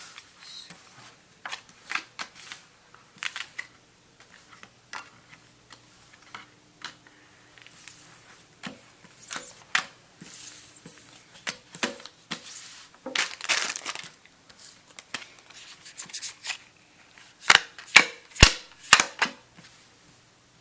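Trading cards being handled and gathered up, with rustling and scattered sharp clicks as they are tapped and stacked; a cluster of louder snapping clicks comes near the end.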